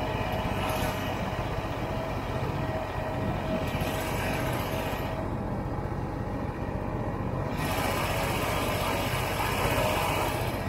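Snowmobile engine running steadily while riding, with a constant low drone; the high hiss drops away for a couple of seconds around the middle, then returns.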